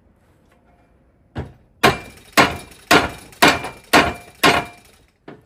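A mallet hammering a Delrin punch against a Dillon RL550B press linkage pin: one light tap, then six hard, sharp blows about two a second. The pin is stuck tight and will not drive out.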